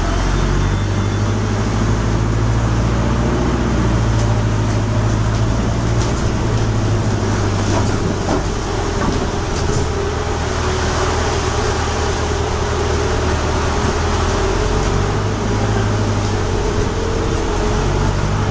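Interior noise of a hybrid double-deck bus on the move: a steady low drivetrain hum with road noise and a few faint clicks from the bodywork.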